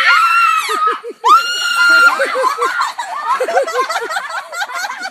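A girl screaming as a rooster chases her: two long, high screams in the first two seconds, then a run of quick yelps mixed with laughter.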